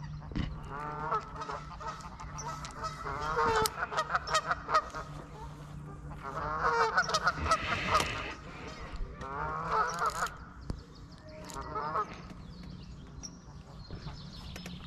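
Geese honking in about five bouts of repeated calls, loudest a few seconds in and again around the middle.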